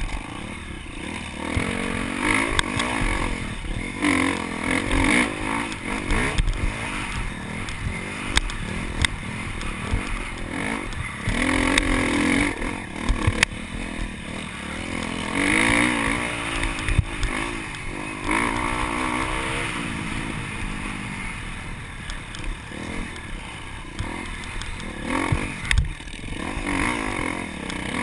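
KTM dirt bike engine under way off-road, revving up and backing off over and over as the rider accelerates and eases between sections of trail. Wind noise and scattered clatter and knocks run through it.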